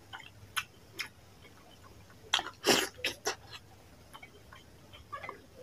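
Close-miked mouth sounds of eating by hand: a few wet lip smacks, then a loud cluster of short wet smacking and sucking noises about two and a half seconds in.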